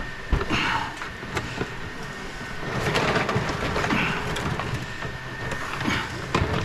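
Cut lengths of insulated copper wire rustling and rattling against each other and against a plastic tub as the tub is handled, with a dull thump about a third of a second in and the loudest rustling around the middle.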